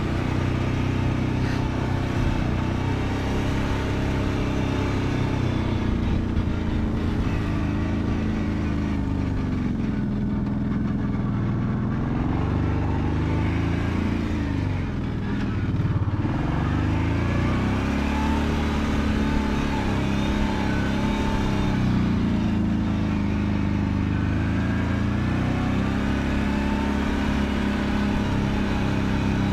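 Kawasaki Brute Force 750 ATV's V-twin engine running, its revs rising and falling repeatedly, with a brief drop in revs about halfway through.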